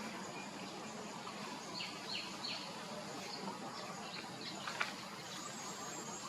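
Outdoor ambience: a steady background hiss with three short high chirps about two seconds in and a couple of faint clicks about five seconds in.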